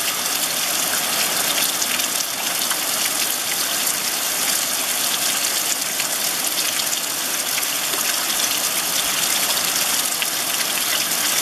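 Heavy downpour falling on wet ground and puddles, a dense, steady hiss of rain with faint scattered ticks of nearby drops.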